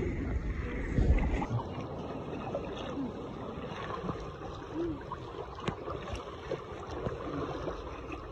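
Paddles stroking through choppy seawater, with water splashing and lapping against an inflatable tandem kayak's hull, and some wind on the microphone.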